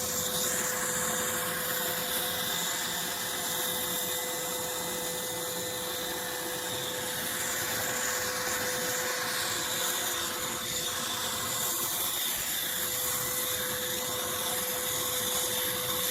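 Cordless vacuum cleaner running steadily: an even rush of suction noise over a constant motor whine.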